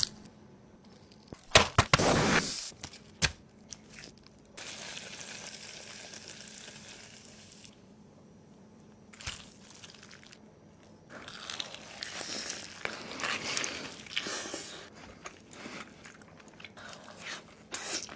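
Food being cooked and handled: stretches of sizzling hiss, with crunching and crinkling handling noises and scattered sharp knocks.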